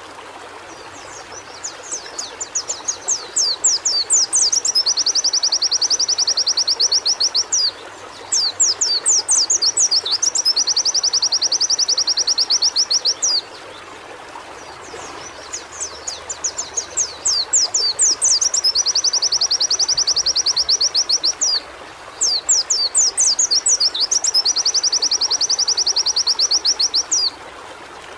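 White-eye (pleci) singing in two long bouts. Each bout is a run of rapid high chirps that builds into a fast, even trill, with a short pause between the bouts and a steady hiss underneath.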